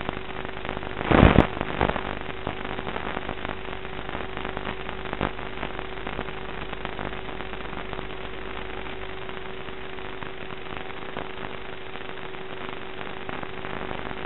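Steady radio static hiss with crackling and a constant hum, carried on the analog FPV video link's audio channel. There is a loud burst of crackle about a second in and a single click a few seconds later.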